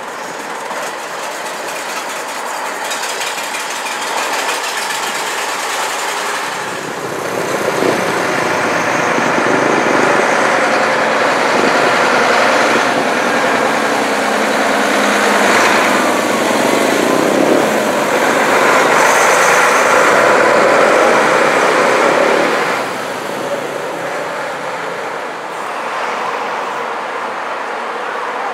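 Vintage buses' diesel engines running as they pull away and drive along the street, with passing traffic. The engine noise swells louder through the middle stretch as a bus comes close, then falls back near the end.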